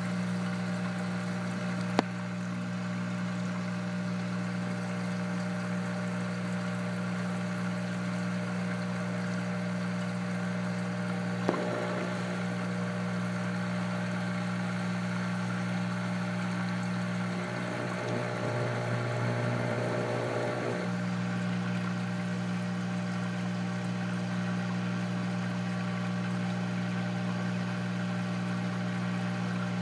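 Aquarium sump running: a steady electric hum from the water pump with water trickling through underneath it. Two light clicks, a couple of seconds in and again about halfway.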